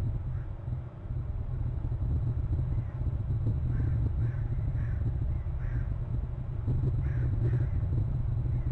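Crows cawing: about half a dozen short caws, starting about four seconds in, over a steady low rumble.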